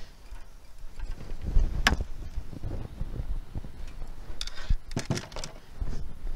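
Fishing rods and reels being handled and laid on a small boat's deck, with scattered knocks and rustling, the sharpest knock about two seconds in and a cluster of them near the end. A low, uneven rumble of wind on the microphone runs underneath.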